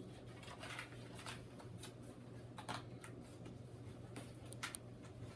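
Quiet rustling and crinkling of packaging and toys being handled out of a box, in short scattered bursts over a faint steady low hum.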